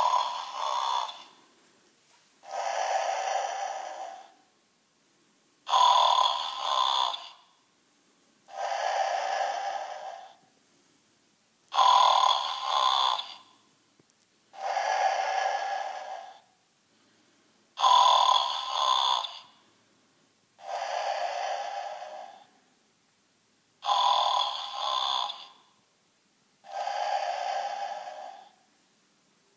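A snoring plush toy's little speaker plays a recorded snore. An abrupt inhaling snore is followed by a softer, longer exhale, and the cycle repeats evenly about every six seconds, five times. The sound is thin, with no low end.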